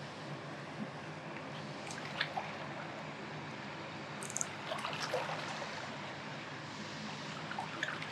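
River water running steadily, with a few faint clicks.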